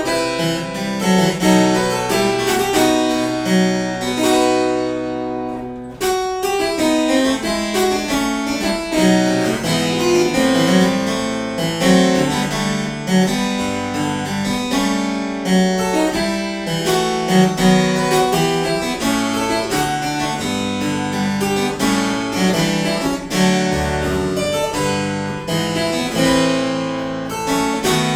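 Instrumental keyboard music with a bright, harpsichord-like tone: busy running notes over a moving bass line. The music thins out, then starts afresh about six seconds in.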